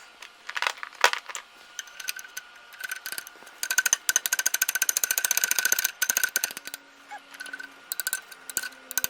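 Metal tools and machine parts clicking and rattling by hand on a Chicago Rivet machine being taken apart. About halfway through comes a fast, even run of clicks lasting a couple of seconds.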